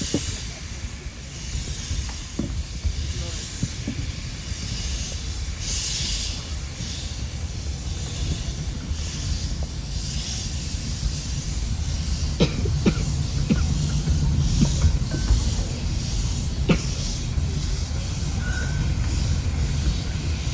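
A 15-inch gauge steam locomotive pulling a train of coaches, heard from aboard a coach. Its exhaust beats and steam hiss ride over a low, steadily growing rumble of the wheels, and a few sharp clicks come from about twelve seconds in.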